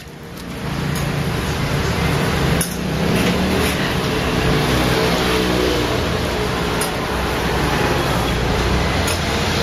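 Steady vehicle engine and traffic noise, with a sharp click about two and a half seconds in.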